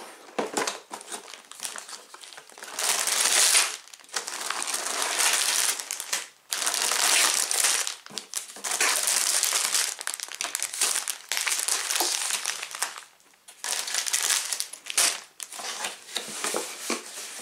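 A cardboard box being opened, then plastic bags full of Lego pieces crinkling and rustling as they are pulled out and handled, in long stretches with short pauses.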